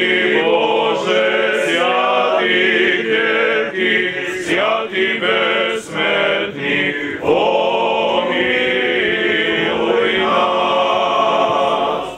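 Voices singing Orthodox liturgical chant, with sustained sung notes that change pitch; it cuts off abruptly near the end.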